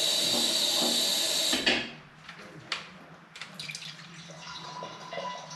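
Automatic transmission fluid pouring in a steady stream from the pan's drain hole into a drain funnel. It cuts off abruptly about a second and a half in, and a few faint knocks and clicks follow.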